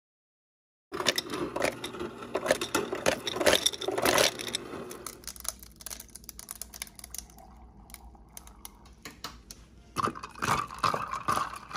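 Bottled iced coffee poured over ice cubes in a glass mason jar, with the ice clinking and crackling against the glass. The clatter is busiest for the first few seconds and comes again near the end.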